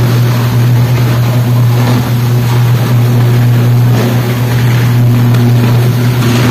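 Electrical fault arc burning at a power substation: a loud, steady low buzzing hum with overtones, over a continuous hiss.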